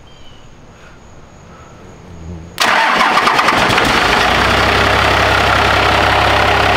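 Turbocharged Cummins diesel engine starting: about two and a half seconds in it suddenly cranks and fires, then settles into a steady idle. This is its first start in the Ramcharger after the engine swap.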